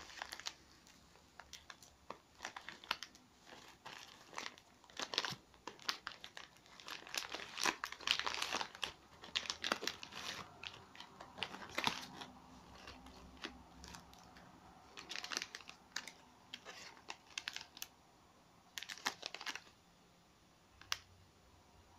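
Packaging unwrapped by hand: a white foam wrap and a silver anti-static bag crinkling and rustling in irregular bursts, busiest in the middle, with a single sharp click near the end.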